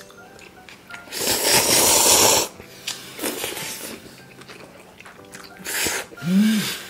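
Loud slurping of spicy cold bibim-myeon noodles: one long slurp of about a second and a half, then a shorter slurp near the end followed by a brief rising-and-falling hum.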